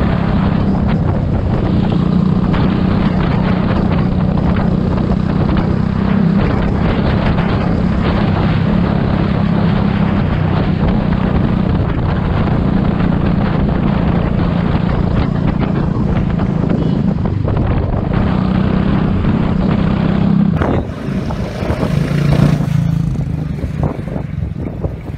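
Royal Enfield Bullet 350's single-cylinder engine running steadily at cruising speed, with wind noise on the microphone. About 21 seconds in, it cuts to the quieter, lower hum of a car engine heard from inside the car's cabin.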